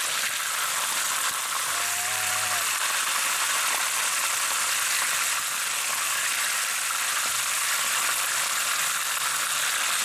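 Chicken wings shallow-frying in hot oil in a frying pan: a steady sizzle.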